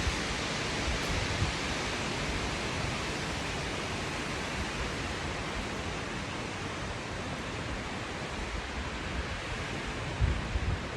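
Strong dry wind blowing in a steady, even rush, with low buffeting thumps of wind on the microphone near the end.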